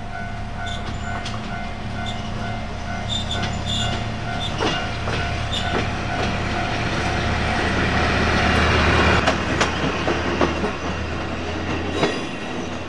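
Shimabara Railway diesel railcar passing: its engine drones steadily and grows louder toward the middle, with wheels clacking over the rail joints from a few seconds in.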